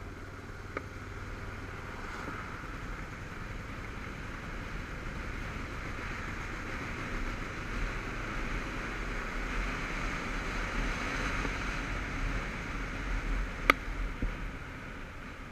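Motorcycle riding along at road speed: engine running under steady wind rush on the microphone, slowly getting louder as it picks up speed. A sharp click near the end.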